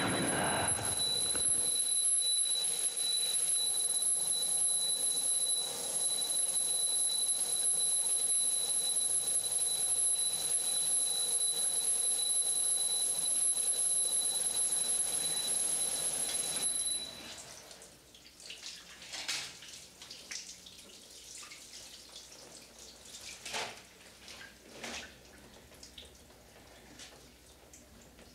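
Shower water running steadily, with a high-pitched ringing tone held over it. Both cut off suddenly about 17 seconds in, leaving quiet scattered drips and splashes.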